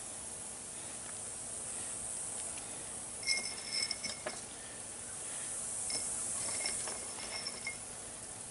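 Scrap copper pieces clinking and rattling as they are dropped by hand into a crucible: a few light clinks with a short ringing about three seconds in, and more from about six seconds in, over a steady outdoor hiss.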